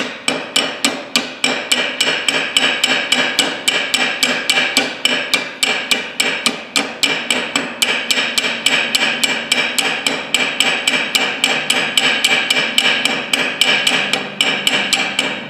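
Small hammer peening over a pin set on an anvil: a fast, steady run of light metallic taps, about four a second.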